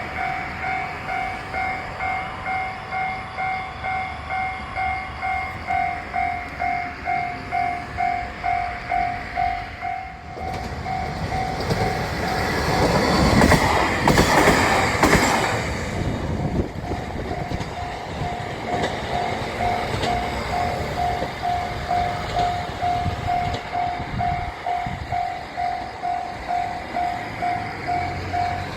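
Japanese level crossing warning bell ringing steadily, about two electronic dings a second. About a third of the way in a train passes over the crossing, and its rumble swells and briefly drowns out the bell. The bell is heard again, still ringing, once the train has gone.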